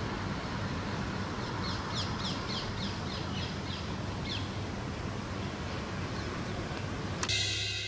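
Street ambience with a steady low traffic rumble, and a bird giving a quick run of about ten short high chirps, roughly four a second, between about two and four and a half seconds in. Shortly before the end a sudden brighter sound cuts in and starts to fade.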